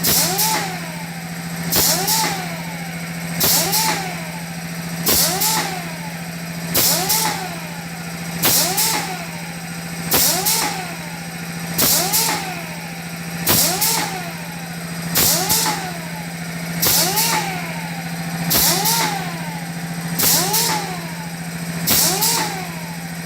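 Automatic liquid filling machine running through its filling cycle over and over, about once every 1.7 seconds. Each cycle brings a short sharp hiss and a brief whine that rises and falls, over a steady hum.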